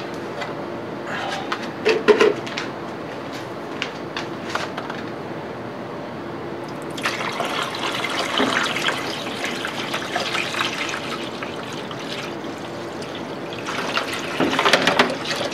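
Liquid poured from a plastic tub into a plastic garbage can, filling a de-rusting bath with a steady splashing wash that starts about halfway through and swells again near the end. Before that come a few light clicks and knocks.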